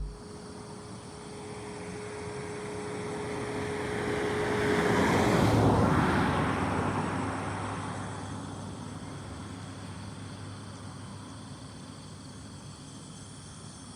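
An engine passing by: a rushing noise that swells to a peak around the middle and then slowly fades, with a steady hum that drops out near the loudest point.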